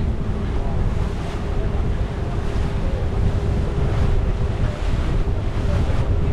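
Wind buffeting the microphone aboard a moving boat, over a steady engine drone and rushing water.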